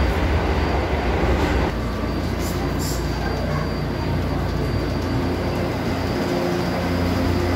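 São Paulo Metro train heard from inside the car as it slows into a station: a continuous running rumble that eases off about a second and a half in. Two short high hisses come about two and a half and three seconds in.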